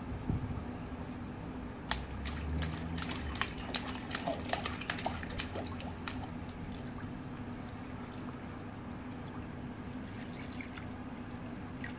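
Swimming-pool water splashing and sloshing as people move through it beside an inflatable float, with a run of small splashes between about two and six seconds in. A steady low hum runs underneath.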